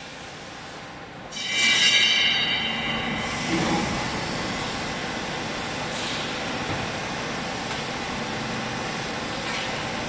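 Vertical hydraulic baler starting up: a loud high-pitched squeal about a second in, then the machine running with a steady mechanical noise.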